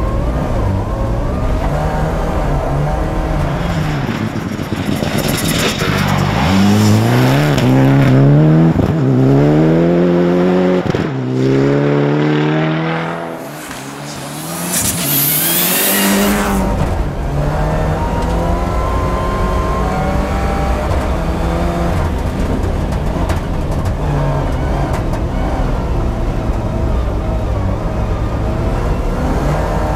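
Rally car engine heard from inside the cabin, revving hard with the pitch climbing and dropping again and again through gear changes. About halfway through, a rally car rushes past close by at speed outside. After that the onboard engine drone returns.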